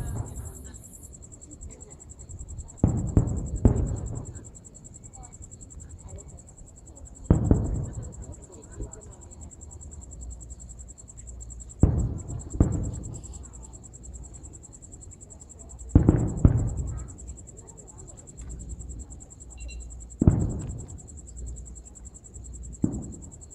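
Aerial fireworks bursting: about nine booms, often two close together, spaced roughly four seconds apart, each dying away in a rumble. A steady high insect trill runs underneath.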